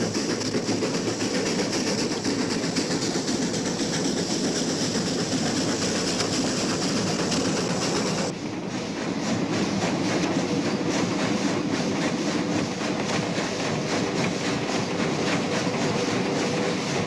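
Steam train running along the track, its wheels clicking over the rail joints in a steady rumble. A high hiss runs with it and stops abruptly about eight seconds in.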